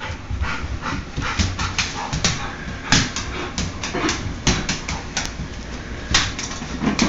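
A black Labrador retriever fetching a beer from the refrigerator: an irregular run of sharp clicks and knocks, several a second.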